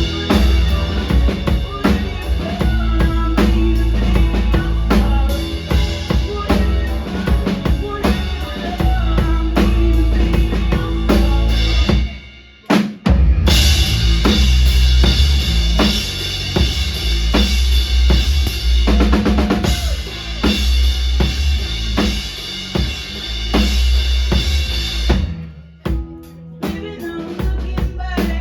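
Live band playing a loud rock song, with the drum kit's kick, snare and rimshots to the fore over heavy bass. About halfway through the band stops dead for about a second, then crashes back in at full volume; near the end it dips briefly again.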